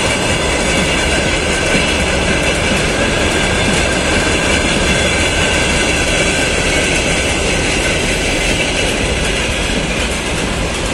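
Freight train of open gondola and hopper wagons rolling past, a steady noise of steel wheels running on rails, with a faint high whine over it.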